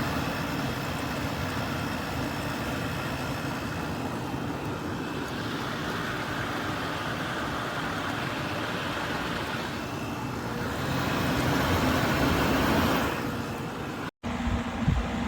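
Pasapair 8000 BTU portable air conditioner running: a steady rush of fan air over a low hum, louder for a couple of seconds near the end, then a brief cut.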